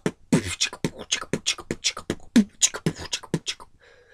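A man making rapid vocal sound effects with his mouth: a string of short, sharp bursts, about six or seven a second, that stops about three and a half seconds in.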